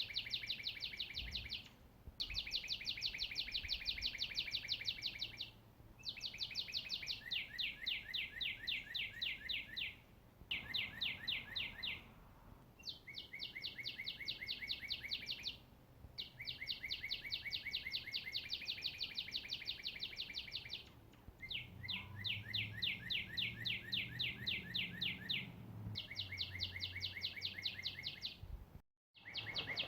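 A songbird singing a series of long, fast, even trills, each lasting a few seconds with short pauses between, about eight in all. A faint low rumble sits underneath in the later part.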